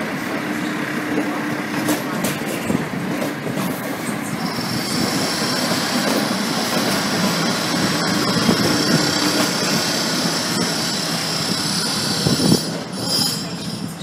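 Endeavour diesel railcar set pulling away and rolling past, engine and wheels on the rails running steadily. From about a third of the way in, a steady high-pitched wheel squeal rides over it until shortly before the end.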